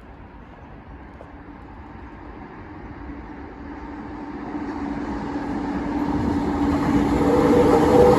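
A train approaching, growing steadily louder, with a steady hum that rises out of the rumble about halfway through and a higher tone joining it near the end.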